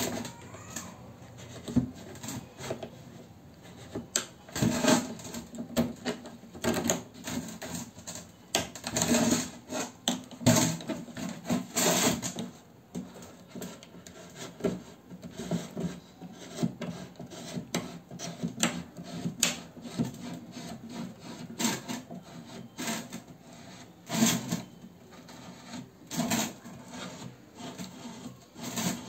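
Utility knife blade sawing and scraping through the thick plastic neck of a jerrycan, in uneven runs of rasping strokes.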